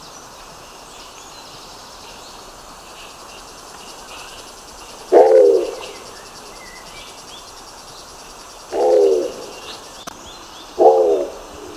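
Nicobar pigeon giving three short, low calls, each about half a second long. The first comes about five seconds in, then two more closer together near the end, over faint high chirping in the background.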